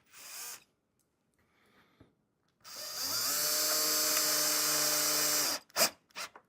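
Power drill driving a screw to fix a latch on the cedar hive door: the motor spins up and runs steadily for about three seconds, then stops abruptly, followed by a couple of sharp clicks.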